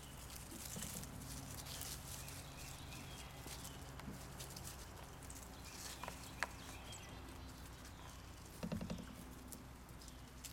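Quiet outdoor ambience with a steady low hum, over which chocolate Labrador puppies' paws and claws make scattered light taps and scuffs on concrete and dry grass. Two sharper clicks come about six seconds in, and a short low sound comes near nine seconds.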